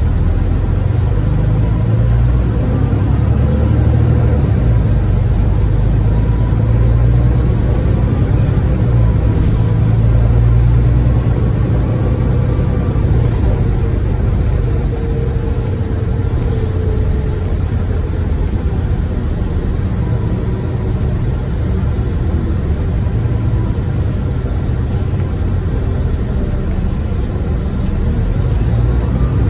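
Volvo B9TL double-decker bus heard from inside the cabin while driving: its rear-mounted six-cylinder diesel and drivetrain give a steady low rumble, with faint whines that glide up and down in pitch as the bus speeds up and slows.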